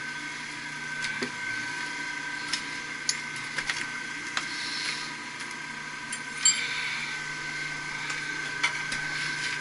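Steady high-pitched whine with a low hum underneath from running machinery, broken by scattered sharp metallic clinks and taps of tools on metal.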